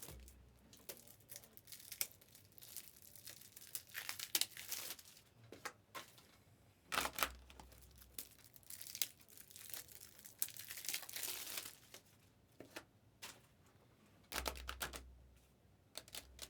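Hockey card pack wrappers and packaging crinkling and rustling as they are handled, in irregular bursts, with a couple of dull bumps about seven and fourteen seconds in.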